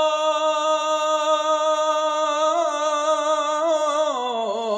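A solo voice chanting Torah cantillation in Hebrew, Jerusalem (Yerushalmi) style, drawing one syllable out into a long held note. The note is steady at first, then wavers in ornaments and dips in pitch near the end.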